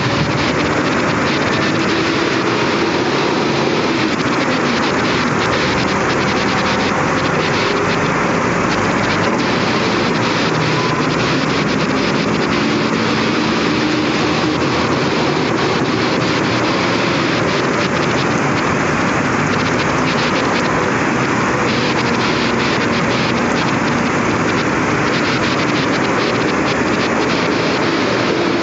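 Heavy rain falling steadily as an even rushing hiss, with a low drone underneath that wavers slowly in pitch.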